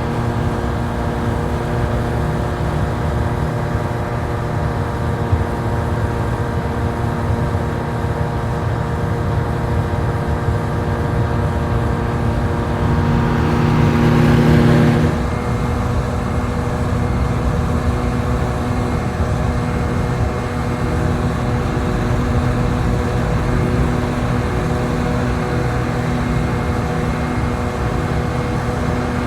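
Hovercraft engine and propeller running steadily with an even drone. About halfway through it swells louder with a rush of hiss for a couple of seconds, then drops back abruptly.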